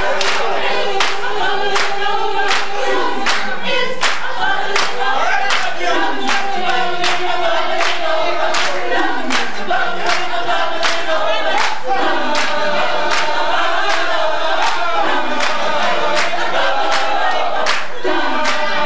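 Gospel choir singing, its phrases repeatedly sliding down in pitch, over hand claps on a steady beat about twice a second.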